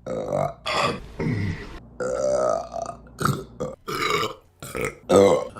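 A woman burping repeatedly: a quick string of about ten short burps separated by brief gaps, the last one the loudest.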